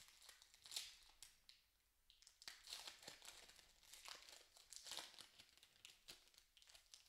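Wrapper of an Upper Deck hockey card pack crinkling and tearing as it is pulled open by hand, in faint, irregular crackles.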